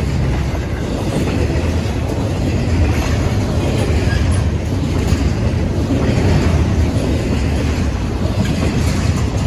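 Double-stack intermodal container train's loaded well cars rolling past at close range: a steady, loud rumble of steel wheels on rail.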